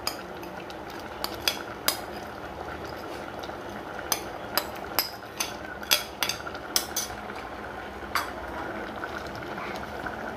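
A spoon tapping and scraping against a bowl and the rim of a steel pressure cooker as ground coconut paste is scraped into the pot: irregular sharp clicks, some close together, over a steady background hiss.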